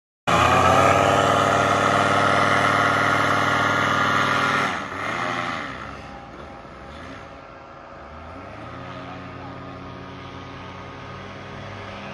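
Powered paraglider trike's engine and propeller running at a steady high pitch, loud and close for about four and a half seconds. It then falls off sharply and runs on more quietly and distantly as the trike moves off on its take-off run.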